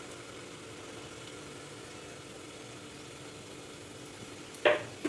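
Steady low hum and hiss of a pan of milk simmering on the stove, with a brief loud clatter near the end.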